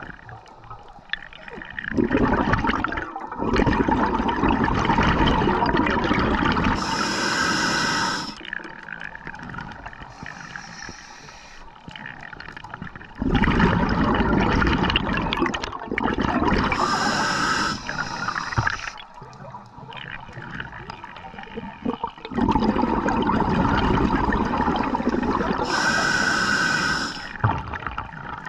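Scuba diver breathing through a regulator underwater: three breaths about nine seconds apart, each a few seconds of rushing, bubbling noise ending in a short high hiss.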